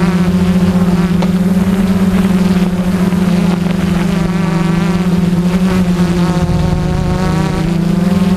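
Multirotor camera drone's motors and propellers buzzing steadily close to its own microphone, a strong low hum with higher overtones that waver in pitch in the second half.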